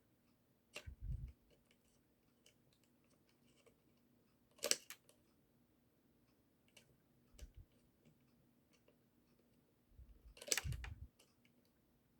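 Pliers clicking and scraping on a small plastic toy gear as it is eased up its shaft, with a few dull handling knocks. A sharp click comes about five seconds in and a cluster of clicks near the end.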